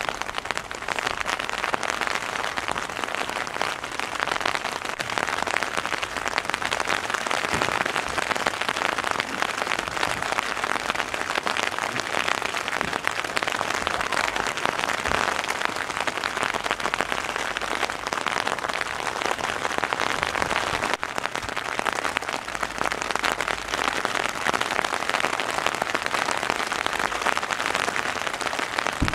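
Steady rain falling on a tent, heard from inside.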